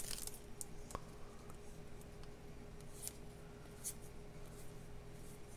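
Faint handling of a stack of trading cards and stickers: a few short paper scrapes and ticks as the cards are slid and flipped, over a thin steady hum.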